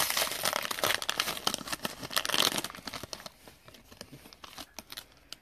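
Crinkling of clear plastic card sleeves and packaging as trading cards are handled, busy at first, then sparser and fainter over the last couple of seconds.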